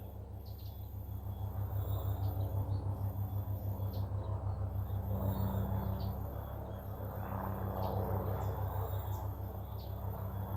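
A steady low rumble with a rapid even pulse, with a few faint, brief bird chirps high above it.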